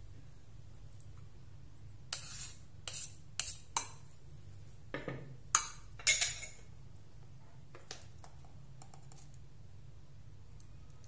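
A spoon knocking and scraping against a ceramic bowl while a filling is stirred, in a burst of short clinks and scrapes that stops after a few seconds.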